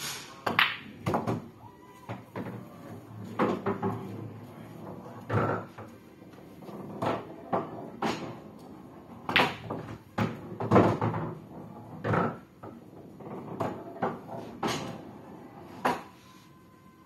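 Pool balls clacking together and knocking against the table rails, with cue tips striking the cue ball: a couple of dozen sharp knocks in irregular clusters.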